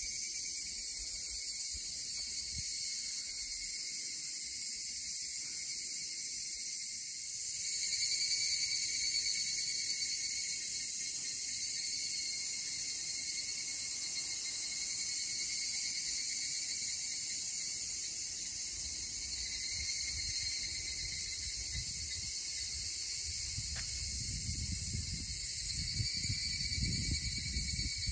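Steady outdoor chorus of insects: a continuous high shrill that swells and eases every few seconds. A low rumble joins in for the last several seconds.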